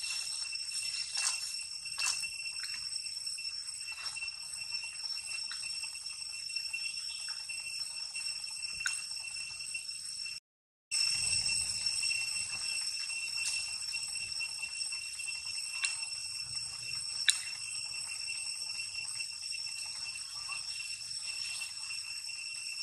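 Insects droning steadily, one high-pitched unchanging tone with fainter higher overtones, with scattered faint clicks; the sound cuts out for a moment near the middle.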